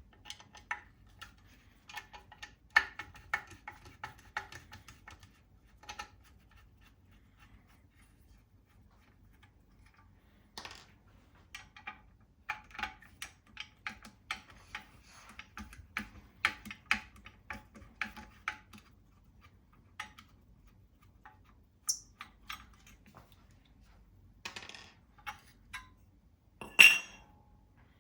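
Small metal gun parts and a Torx driver being handled, with scattered light metallic clicks and clinks coming in clusters, and one louder clank near the end.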